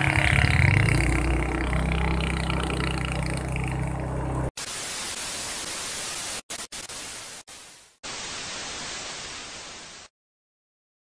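A motorcycle engine running steadily. About four and a half seconds in it cuts off sharply into a TV-static hiss that drops out several times and stops about a second before the end.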